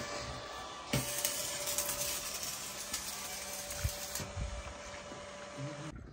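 Electric arc welding on a steel post: a steady crackling hiss with a faint hum, broken by a couple of knocks, cutting off near the end.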